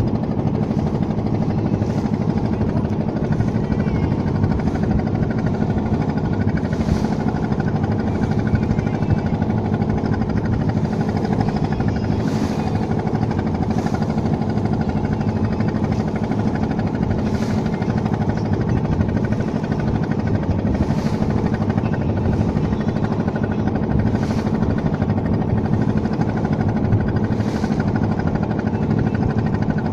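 A river boat's engine running steadily with a constant low drone.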